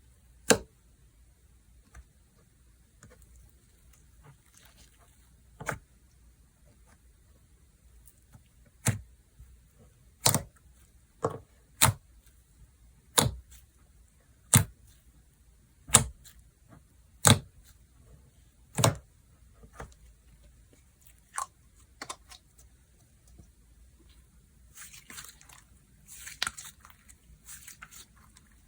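Slime being played with by hand, giving a series of sharp pops, about one every second or so through the middle, as trapped air bursts. Near the end it turns to a soft, fizzy crackling as the slime is stretched and worked.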